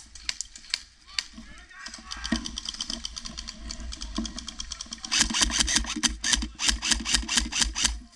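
Airsoft guns firing rapid strings of shots. The firing gets louder and sharper about five seconds in, with the crunch of dry leaves and the knock of gear as the player moves.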